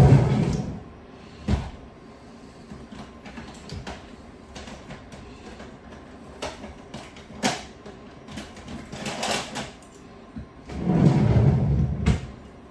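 Objects being handled and moved: scattered knocks and bumps with quieter rustling between, and a heavier, longer bump near the end.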